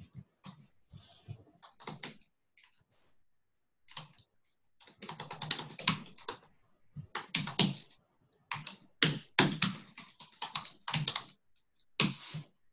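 Typing on a computer keyboard: a few scattered keystrokes, then quick runs of key clicks from about five seconds in, with a last short burst near the end, as terminal commands are typed.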